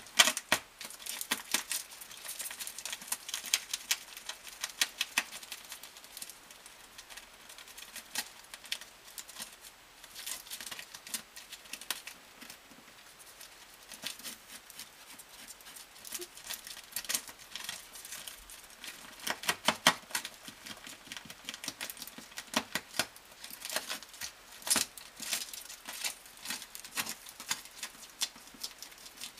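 European ground squirrel tearing and gnawing at adhesive tape stuck along a wall corner: quick runs of small scratchy clicks and crackles in bursts, with quieter pauses between.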